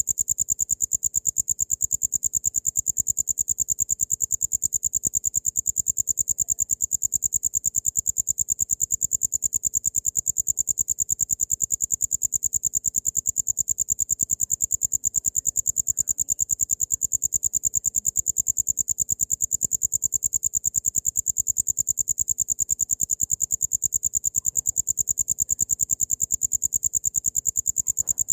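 Cricket chirping without a break: a high-pitched, even trill of rapid pulses.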